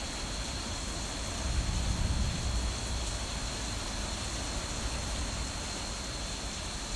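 Heavy thunderstorm rain, heard from inside the house as a steady hiss. A low rumble of thunder swells about a second and a half in and dies back within about a second.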